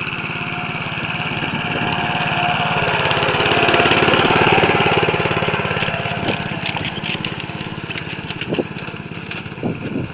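Motor Sich MB-9E walk-behind tractor's engine running steadily under load as it drags a harrow. It grows louder about a third of the way in as it passes close, then eases off as it moves away.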